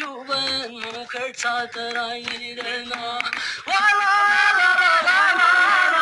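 Background music: a song with a singing voice holding and bending long notes over a steady drone. It grows fuller and louder about two-thirds of the way through.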